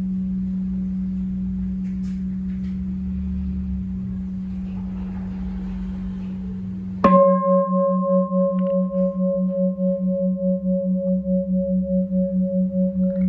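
A 40 cm Huế-style bronze bowl bell (chuông gia trì, cast from red copper and tin) hums on a low steady tone left over from an earlier strike. About seven seconds in, it is struck again with its mallet. The new ring holds a deep tone with higher overtones and wavers in a steady beat about four times a second, a long, sustained ring.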